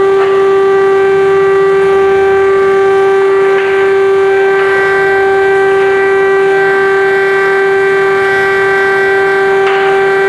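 Air-raid siren sounding a loud steady tone that holds one pitch without rising or falling, the signal of an air-raid alert.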